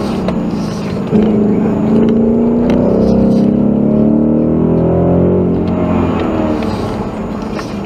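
2019 Ford Mustang GT's V8 engine heard from inside the cabin while driving, its revs rising and falling through the bends. There is a short dip in level about a second in, and it eases off near the end.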